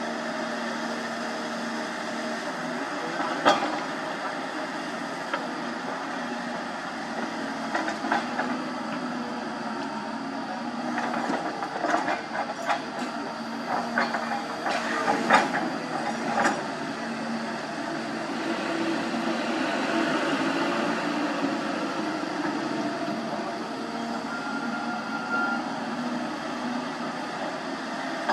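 Hyundai 220 excavator's diesel engine running steadily under load as it loads a dump truck, the engine swelling for a few seconds in the second half. Over it come a sharp knock a few seconds in and a run of knocks and clanks in the middle, rocks and soil striking the truck's steel bed.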